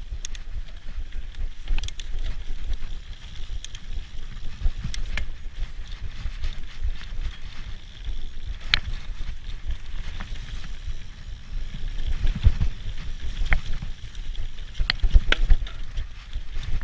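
Mountain bike riding fast down a dirt forest trail: a continuous low rumble of tyres and wind, with sharp clicks and knocks as the bike rattles over bumps, busiest and loudest near the end.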